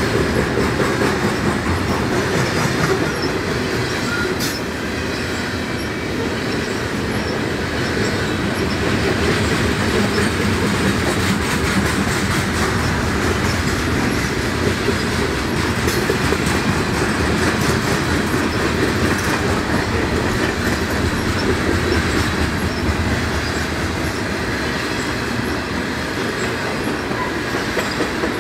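Canadian Pacific freight train cars rolling past, with a steady rumble and the clatter of wheels on the rails.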